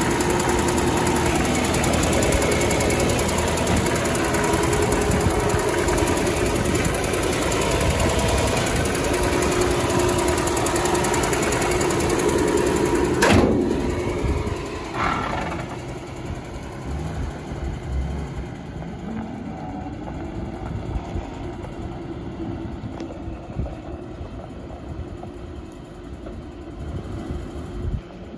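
1966 Ford one-ton truck's inline-six engine idling steadily, loud at first, then quieter from about halfway through. A single sharp bang comes about halfway through, just before it turns quieter.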